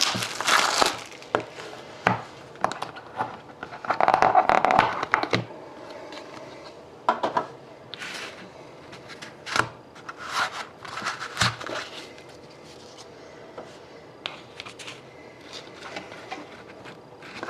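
A trading-card box and its packaging being opened and the cards handled: irregular bursts of rustling, crinkling and scraping with scattered clicks, loudest near the start and about four seconds in, thinning out after the middle.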